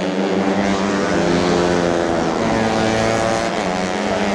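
Tuned four-stroke underbone race motorcycles running hard, several engines overlapping, their pitch rising and falling as they rev up and shift.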